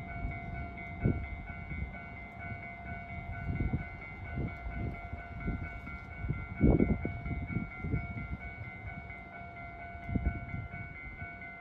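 A railway warning tone sounds steadily, with overtones and a faint regular beat. Irregular low thumps come about a second in, around four seconds, loudest near seven seconds, and again near ten seconds.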